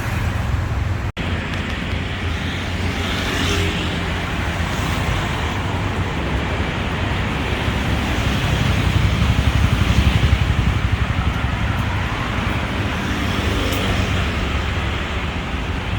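Steady street traffic noise, with a deep rumble of passing motor vehicles that swells louder for a couple of seconds past the middle. The sound cuts out for an instant about a second in.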